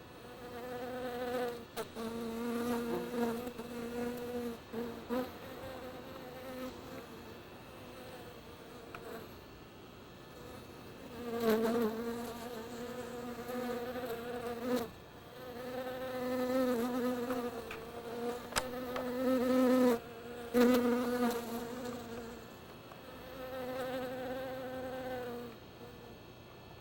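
A buzzing drone on one steady pitch, held for stretches of a few seconds with short breaks between, and a few sharp clicks along the way.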